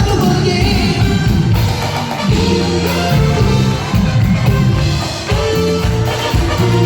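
Cumbia band music with singing over drums and bass, played at a steady loud level.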